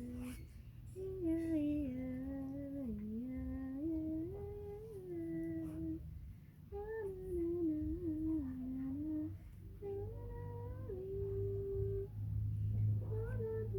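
A person humming a slow wordless tune in phrases of a few seconds, the pitch stepping up and down between held notes.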